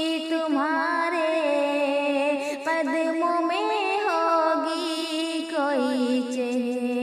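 A woman singing a slow Urdu ghazal, drawing out the notes with gliding ornaments.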